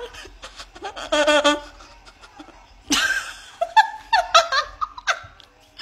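A woman laughing in several bursts, over a faint low steady hum.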